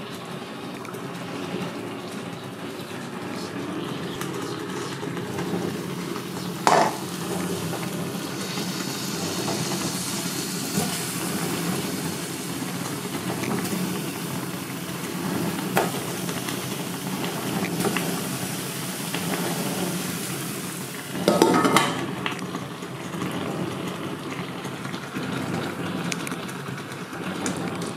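Kitchen handling sounds: a stainless steel pot, its glass lid and utensils clattering on a ceramic hob, with three louder clanks, the last lasting about a second, over a steady low hum.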